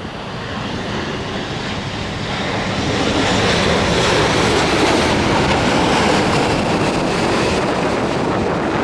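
Jet airliner coming in to land close by, its engine noise swelling over the first three seconds and then holding loud and steady.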